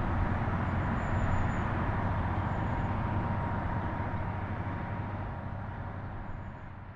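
Steady low rumble of passing vehicles with a faint steady tone over it, fading out over the last few seconds.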